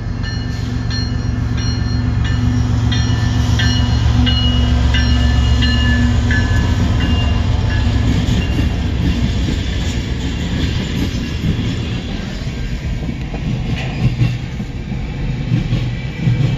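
A freight train passing, heard from inside a car. Its diesel locomotives rumble past first, loudest about five seconds in, with short high-pitched tones over them. Then the freight cars roll by with a rough rolling noise and a few wheel clicks.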